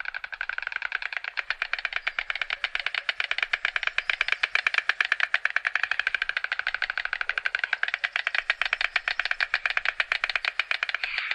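White stork bill-clattering: the bird snaps its mandibles together in a long, unbroken run of very rapid clacks.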